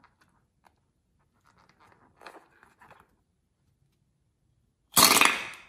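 Faint rubbing and handling of a glue-filled rubber balloon, then about five seconds in a sudden loud burst, under a second long and fading, as the balloon's neck is snipped open with scissors.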